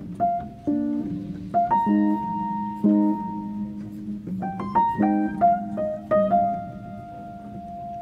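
Background piano music: single notes and chords struck at an unhurried pace, each left to ring and fade.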